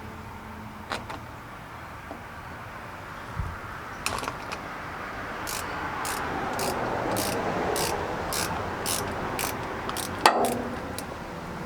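Ratchet wrench clicking as it loosens a battery cable terminal, a regular run of clicks about two or three a second over a light rasping, ending in a sharp metallic knock near the end.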